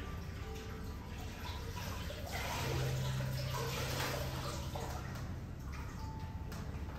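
Water running for a few seconds, starting about two seconds in, with a steady low hum alongside it.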